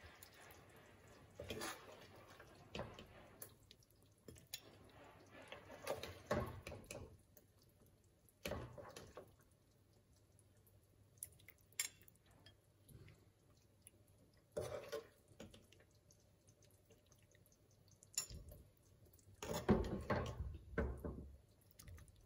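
Steel ladle scraping and clinking against a cooking pan and bowl while thick mutton curry is spooned out and drops wetly into the bowl, in several separate bouts with quiet stretches between.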